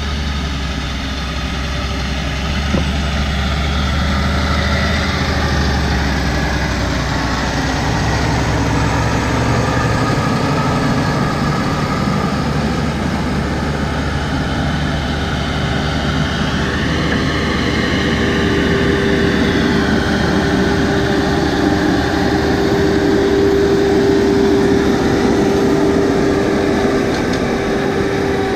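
Log skidder's diesel engine running steadily, with a steady whine joining about halfway through.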